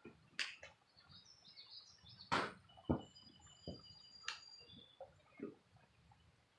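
Birds chirping in the background, with scattered knocks and thumps; the loudest are two thumps about half a second apart near the middle.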